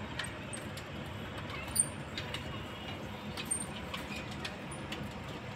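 Steady low night-street background rumble with scattered light clicks, one sharper click about two seconds in, and a few short high chirps.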